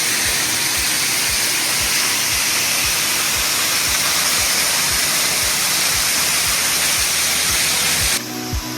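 Waterfall rushing, a steady hiss of falling water that cuts off suddenly about eight seconds in. The low pulse of a background music track's beat runs beneath it, and the music's melody returns at the cut.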